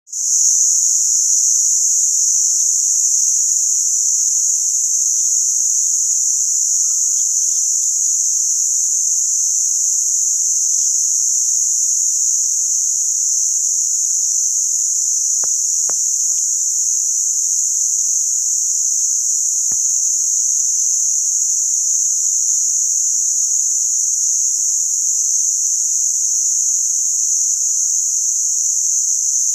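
Dense insect chorus, a steady high-pitched shrill drone that never lets up, with a few faint clicks a little past halfway.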